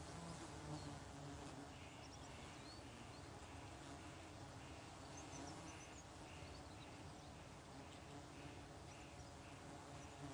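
Near silence: faint outdoor ambience with a steady hiss, a soft chirp repeating about twice a second from about two seconds in, and a few faint high bird chirps around the middle.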